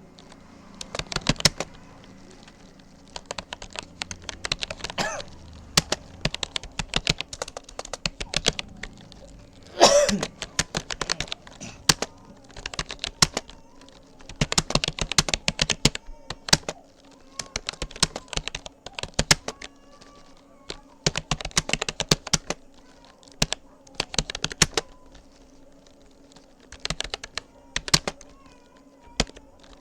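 Typing on a Rapoo computer keyboard: quick runs of key clicks in bursts, broken by short pauses, with one louder cluster of strokes about ten seconds in.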